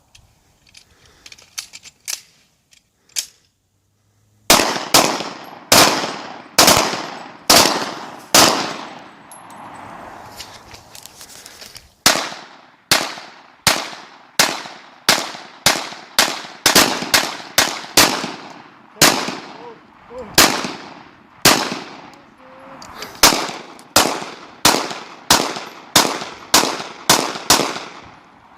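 Gunshots from a firearm fired as repeated single shots, about one to two a second, each with a short echo trailing off. There is a few faint clicks first, then a string of shots, a brief pause, and a longer string to the end.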